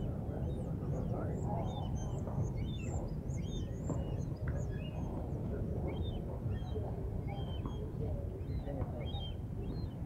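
Many small birds chirping, short high chirps coming quickly one after another without a break, over a steady low background noise.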